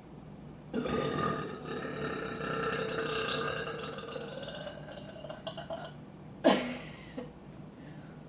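A woman's long, drawn-out burp lasting about five seconds, held at a steady pitch that rises slightly as it trails off. About half a second later comes a brief, louder burst that falls in pitch.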